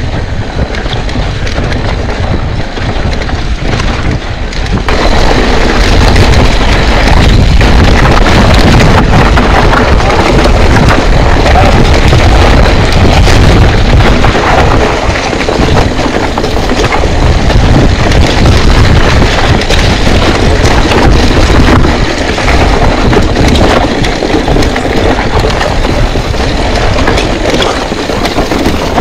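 Loud wind buffeting on the microphone while riding a mountain bike downhill, with the tyres and frame rattling over the rough trail; it grows louder about five seconds in.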